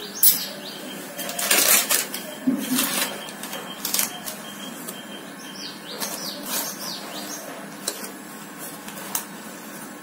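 A metal spoon scooping cornflour from a plastic jar and tipping it onto a plate: irregular scrapes and light clicks of spoon against jar, with short rustles.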